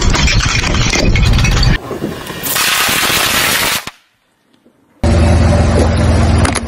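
A car tyre rolling onto and crushing a plastic puzzle cube on asphalt: a rapid run of cracks and crunches over a low rumble. After about two seconds it cuts to a steady hiss, then about a second of silence, then a loud low tyre rumble with scattered clicks.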